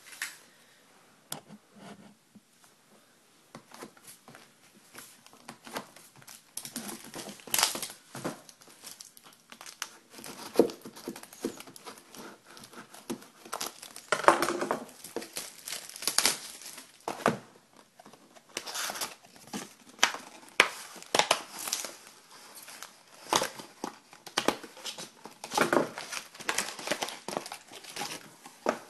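Plastic packaging being crinkled and torn by hand as a sealed box of hockey cards is unwrapped and opened, in irregular rustling spurts with louder tears every few seconds.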